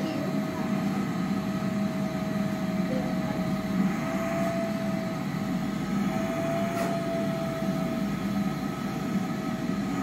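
Canister vacuum cleaner running steadily: a constant motor whine over a rush of air.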